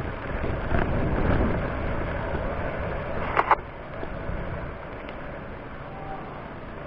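Wind rushing over the microphone and road noise from a bicycle being ridden, louder for the first couple of seconds and then steadier. There are a couple of sharp clicks about three and a half seconds in.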